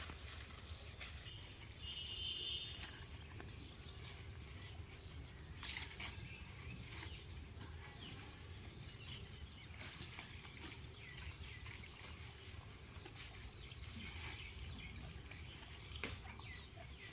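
Chickens clucking faintly now and then, with a brief higher-pitched call about two seconds in.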